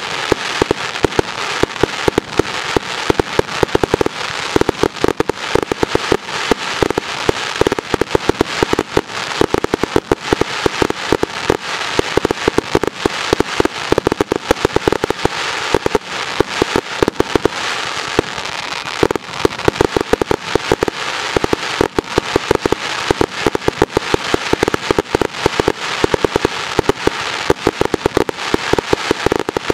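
Fireworks going off close by in a rapid, unbroken barrage: many sharp bangs a second with no let-up.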